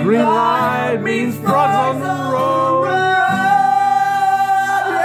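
A man sings along to his own strummed Epiphone acoustic guitar. About three seconds in he goes into one long held note.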